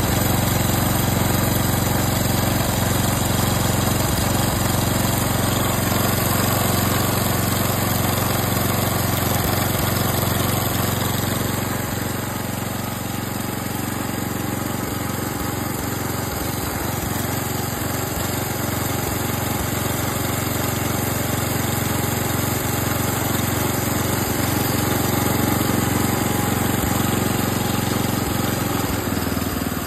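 Tecumseh AQ148 small engine on a lawn mower running steadily at a constant speed, a little quieter from about twelve seconds in.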